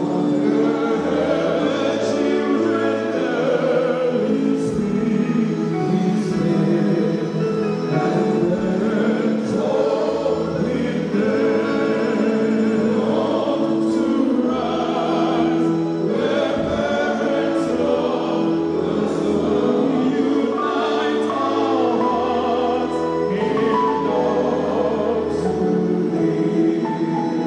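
A choir singing a gospel song over held bass notes, with a light regular beat.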